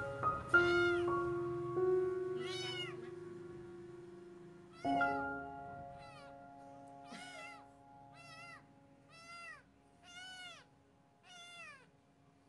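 Young kitten mewing over and over in short, high-pitched cries, about one a second, getting fainter toward the end.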